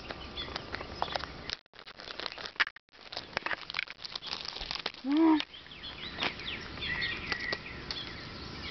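Clear plastic zip bag crinkling and rustling in the hand, with handling knocks on the microphone. Birds chirp in the background.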